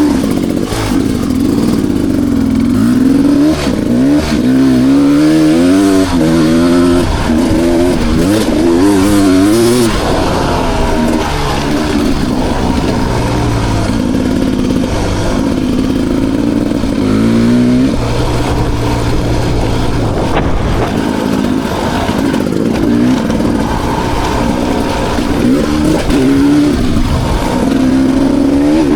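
2020 Beta 300 RR single-cylinder two-stroke dirt bike engine being ridden hard, revving up and dropping back again and again as the throttle is worked. Fast swings come in the first half, a sharp climb in revs comes just before the middle, and the running is steadier after that.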